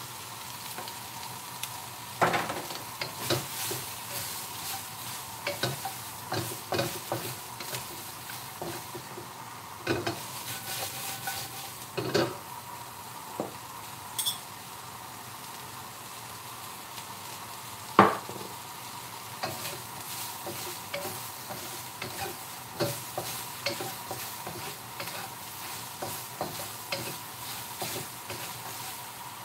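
Sliced peppers, sweet corn and mushrooms sizzling in a wok while a wooden spatula stirs them, with irregular knocks and scrapes of the spatula against the pan. One sharper knock comes a little over halfway through.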